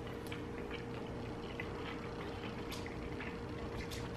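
Quiet kitchen room tone: a steady low hum with a few faint, scattered small clicks.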